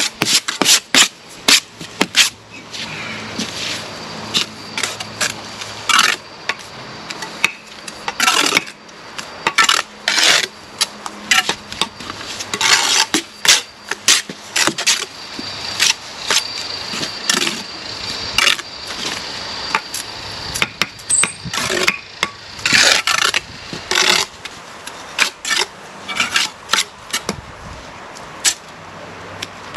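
Steel brick trowels scraping and slapping mortar on a plastic spot board, and bricks being tapped down into their mortar bed, in a steady run of irregular sharp scrapes and knocks. A faint low hum runs underneath.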